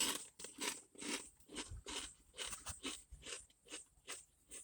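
A person chewing a mouthful of thick kettle-cooked potato chips. A loud crunch comes right at the start, then short chewing crunches about two a second, getting fainter toward the end.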